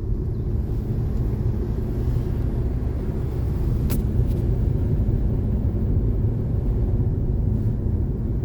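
Steady low rumble of a car driving along a road, heard from inside the cabin, with a single short click about four seconds in.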